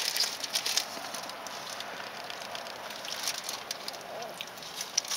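Paper sandwich wrapper rustling and crinkling: light crackles in about the first second, then a few scattered ones over a steady soft hiss.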